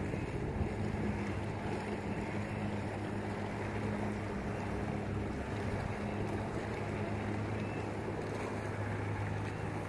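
Jet ski engine idling: a steady low hum, with wind noise on the microphone.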